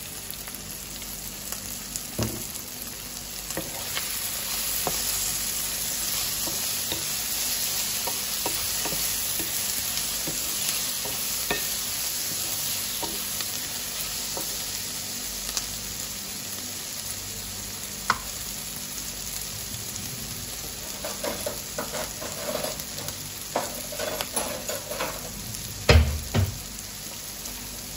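Chopped onion, tomato and chili sizzling in a non-stick frying pan while a wooden spatula stirs them. Scrapes and taps of the spatula on the pan grow more frequent in the last several seconds, with the loudest knock near the end.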